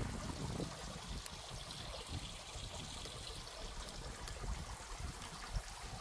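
Small mountain stream trickling over rocks, faint and steady, with a low rumble underneath.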